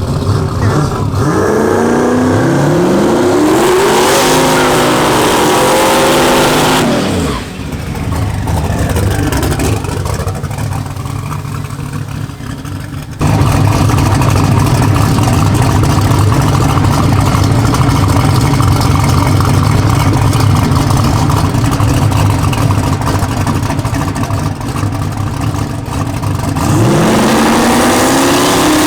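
Drag race car engine accelerating hard, its pitch climbing for several seconds before falling away suddenly as the throttle is lifted. After a quieter stretch comes a loud, steady engine drone, and another rising rev starts near the end.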